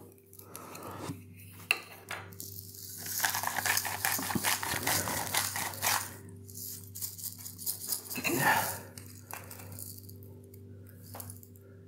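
Hand-twisted salt grinder crushing coarse pink salt crystals: a dense, rapid gritty crackle lasting about three seconds, then a shorter burst of grinding a few seconds later.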